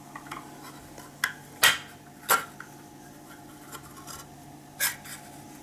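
A metal fork scraping and clicking against an opened tin can of tuna on a plate: four or five short, sharp scrapes and knocks, the loudest about one and a half and two seconds in, with another near the end.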